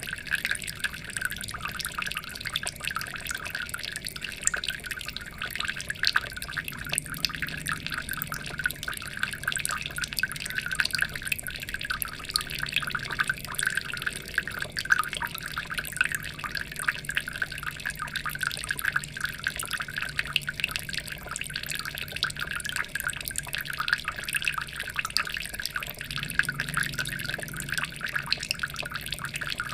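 Water trickling and splashing in a steady, dense patter of fine drips.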